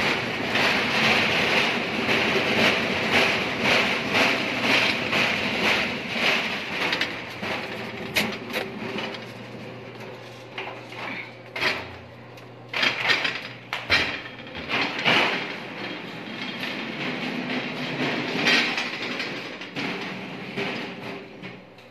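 Stainless-steel food trolley rolling over a tiled floor, its wheels and loaded shelves rattling steadily, with louder clanks and knocks in the second half.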